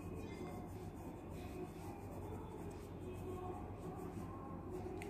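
Pencil scratching on paper in short shading strokes, drawing the lines on a sketched lip, over a steady low hum.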